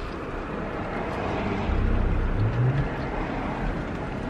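Steady vehicle rumble heard from inside a car, swelling about halfway through.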